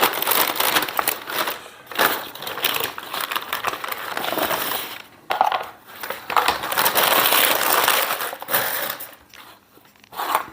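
Pink butcher paper being crumpled and rustled, a dense crackling with a short break about five seconds in, dying down near the end.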